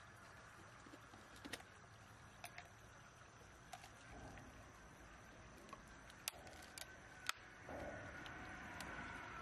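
A knife blade clicking and tapping against the shell of a large freshwater mussel as it is pried open: about half a dozen sharp, scattered clicks, with a little fuller handling sound near the end. A faint stream runs underneath.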